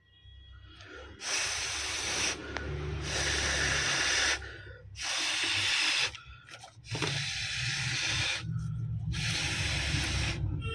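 Loud hissing, rushing noise in several long spells with short breaks between them, starting about a second in.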